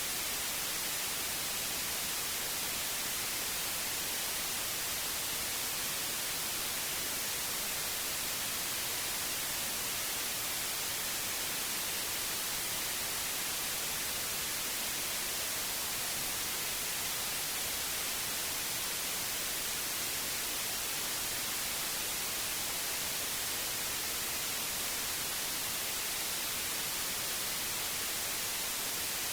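Steady synthetic white noise: an even hiss with most of its energy in the treble, unchanging throughout.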